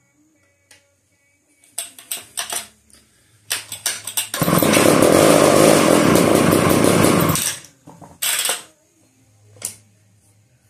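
1990s McCulloch Pro Mac 700 two-stroke chainsaw being pull-started after sitting unused for seven years: a few quick yanks of the recoil starter, then the engine fires and runs loudly for about three seconds before dying, followed by another short pull.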